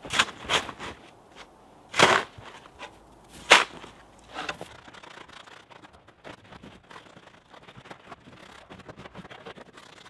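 Metal-bladed snow shovel digging into packed snow: a handful of sharp scrapes and chunks over the first four and a half seconds, the loudest about two seconds in, then only faint scuffing.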